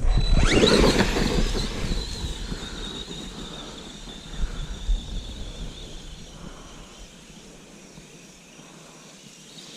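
Brushless electric motor of an Arrma Granite BLX RC truck whining, rising sharply in pitch as it accelerates, then a steady high whine that fades gradually.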